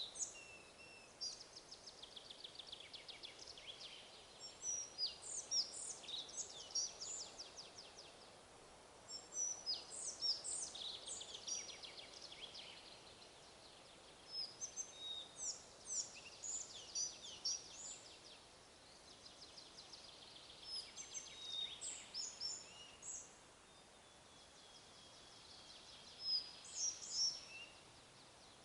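Several songbirds singing in a forest: repeated short chirps, whistled sweeps and quick trills in bursts, one bird after another, over a faint steady hiss of wind in the trees.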